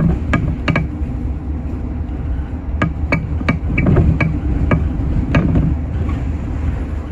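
City bus driving, heard from inside at the front: a steady low engine and road rumble, with frequent irregular sharp knocks and rattles as the bus goes over the uneven road surface.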